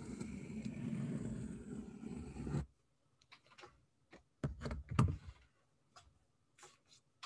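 Pencil lead of a drawing compass scraping around paper as a circle is drawn, for about two and a half seconds. Then a few light clicks and knocks as the metal compass is set down on the desk, the loudest a little before the end.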